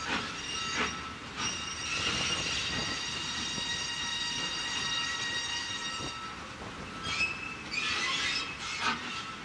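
WD Austerity 2-8-0 steam locomotive's wheel flanges squealing in a high, steady, many-toned squeal as it rolls slowly round curved track. A few sharp clanks come near the start and again near the end.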